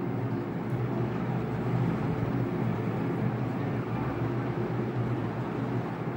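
Wax crayon scribbling on paper over a steady low hum and hiss.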